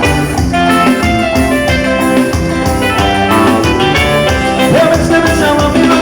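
Live band music with a steady dance beat, bass and guitar, playing an instrumental passage between sung lines.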